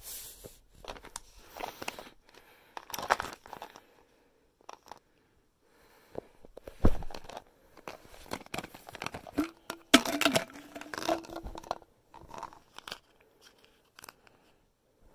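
Crinkly packaging handled close to the microphone and torn open, in irregular bursts of rustling and crackling.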